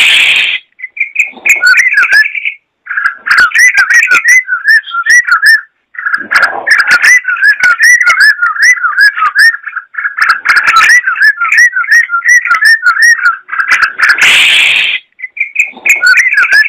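Yellow-vented bulbul (trucukan) singing long runs of rapid, bubbly warbled notes, broken by short pauses, with one harsh rasping burst near the end.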